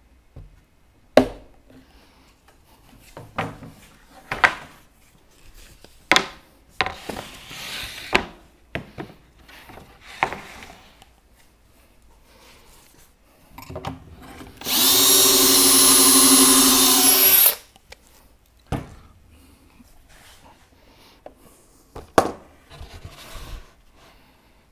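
Scattered knocks and clicks of wood being handled and positioned, then a Milwaukee drill runs steadily for about three seconds, boring a pocket hole in plywood through a Kreg jig, followed by a few more knocks.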